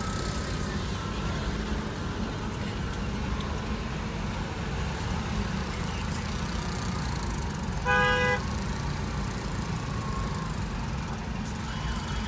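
Steady low rumble of a car's engine and traffic heard from inside the cabin in slow traffic, with one short vehicle horn toot about two-thirds of the way through.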